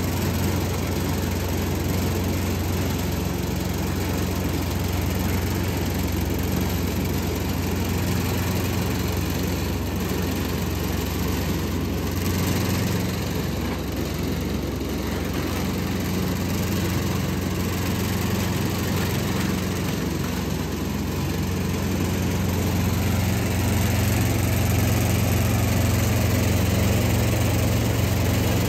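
Steady low hum of the electric stirrer motor on a stainless steel calf-milk mixing tank, with water running into the tank. The hum grows somewhat louder about three-quarters of the way through.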